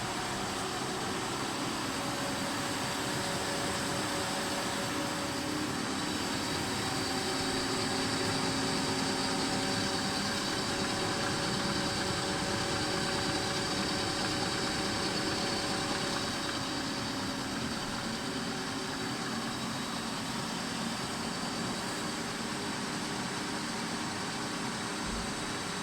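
Unimax (LMC) 723H four-sided planer-moulder running steadily with its feed at maximum speed: a continuous mechanical hum with several steady whining tones, a little louder through the middle.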